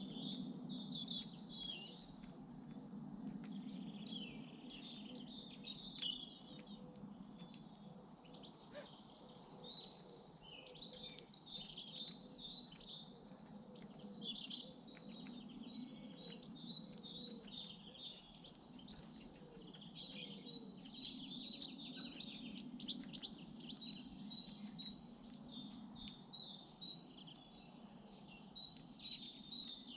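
Several small garden birds singing and chirping over a steady low background hum. From about halfway on, one bird repeats a quick run of short high notes over and over.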